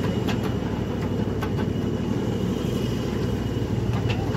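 Ride-on miniature train rolling along its track: a steady low rumble, with a few light clicks.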